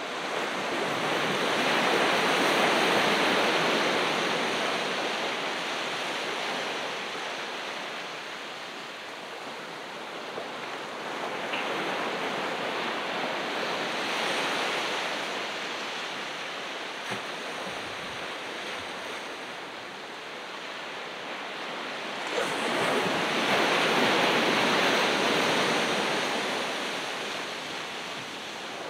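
Ocean surf on a beach: waves breaking and washing up the shore, swelling louder three times about ten seconds apart.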